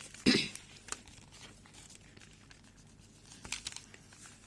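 Quiet paper rustling with small scratches and taps on paper at a desk, and a short voice sound just after the start.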